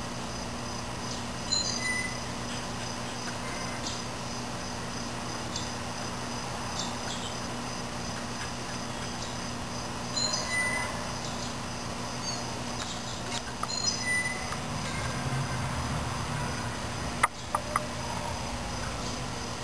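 Outdoor background noise with a steady low hum and scattered short, high chirps every few seconds, with a couple of sharp clicks near the end.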